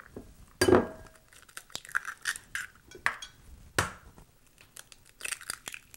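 Eggs being cracked against the rim of a glass bowl: a few sharp cracks, the loudest about half a second in with a brief glassy ring, then lighter clicks and crackles of eggshell being broken apart.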